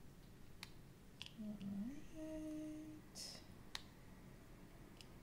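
A woman hums briefly, one low note sliding up to a higher held note lasting about a second and a half, starting about a second and a half in. Around it come a few small, sharp clicks of a diamond-painting drill pen picking up and pressing resin drills onto the canvas, and a short hiss just after the hum.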